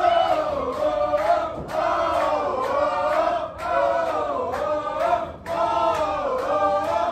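Wrestling crowd chanting in unison: a sung phrase that dips in pitch and rises again, repeated about every two seconds, four times over.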